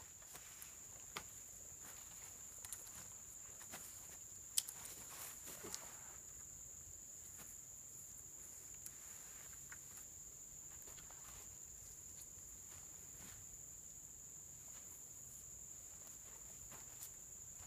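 A steady, high-pitched drone of insects, with scattered light knocks and footsteps as wooden poles are handled and set up on the forest floor.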